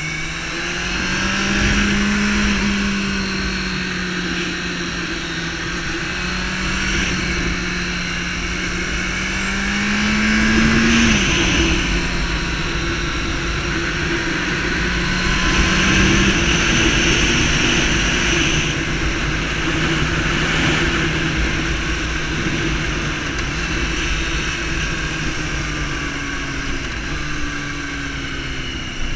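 Sport motorcycle engine running under way, its pitch rising with the throttle and dropping suddenly at gear changes about eleven and sixteen seconds in, over a steady rush of wind noise.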